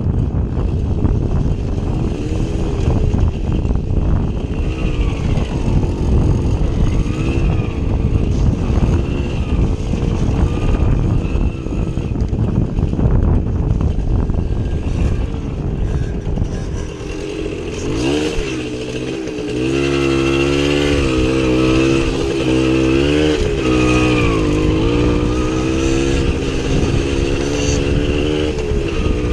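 Small two-stroke motorcycle engine revving up and down as the bike rides off-road. For the first half it is partly buried in rough, noisy rumble. From about eighteen seconds in the engine note comes through clearly, rising and falling with the throttle.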